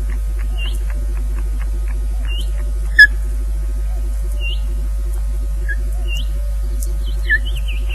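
Steady electrical hum with a pulsing buzz from the nest camera's audio feed, over which a bird gives short high chirping calls every couple of seconds, with one loud, sharp call about three seconds in.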